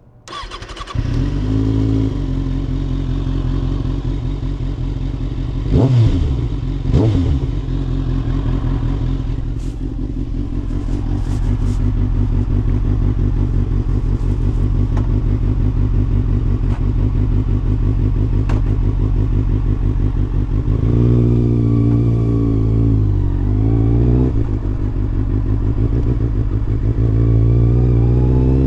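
Kawasaki ZX-6R's inline-four engine heard from the rider's position. It comes in abruptly, runs at idle, is blipped twice in quick succession about six and seven seconds in, then runs steadily. From about twenty seconds on the revs rise, dip briefly and climb again near the end as the bike pulls away.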